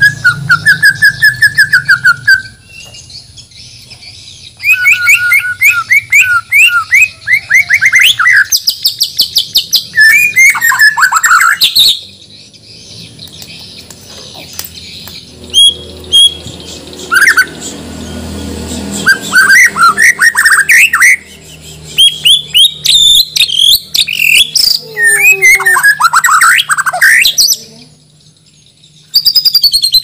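White-rumped shama (murai batu, Borneo type) singing loudly in phrases of fast repeated whistled notes and sweeping glides, each burst lasting a few seconds with short pauses between them.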